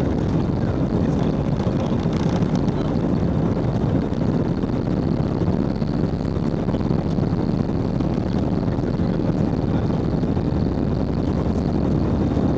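Steady low rumble of a vehicle in motion, heard from inside.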